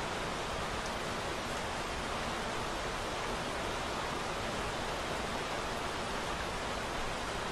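Steady, even hiss of rain with no breaks or strikes.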